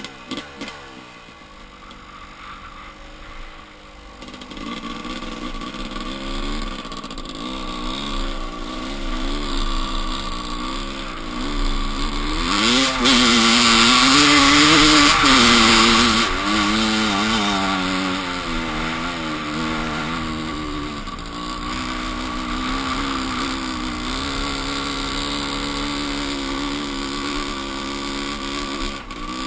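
Dirt bike engine heard from a helmet camera, its pitch rising and falling as the throttle is worked over sand. The loudest stretch comes about halfway through, as the engine is held high and wind rushes over the microphone climbing a dune. After that it settles to a steadier drone.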